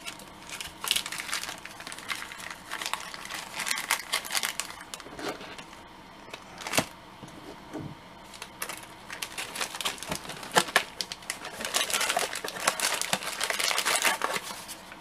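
Thin clear plastic bag crinkling as it is handled and a small action figure and its accessories are slipped into it, with a few sharp clicks among the rustling. The crinkling is densest near the end.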